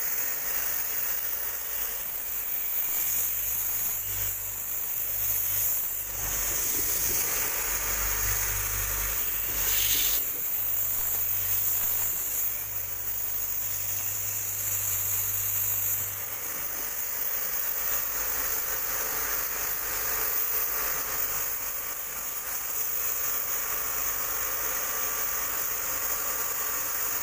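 High-pressure water jet hissing as it washes through the fins of a dirty air-conditioner evaporator coil: a steady high hiss, with a low hum underneath through the first half.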